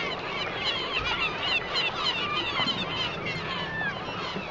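Many birds calling at once, a dense overlapping chatter of short chirps over a steady background hiss.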